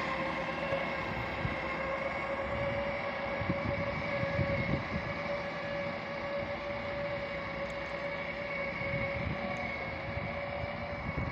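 ČD Regionova diesel railcar pulling away, its engine and drive giving a steady whine of several pitched tones, with irregular low rumbles now and then.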